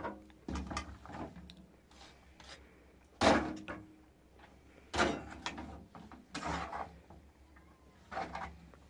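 Irregular knocks and clatter, a dozen or so separate hits, the loudest about three seconds in and another strong one about five seconds in.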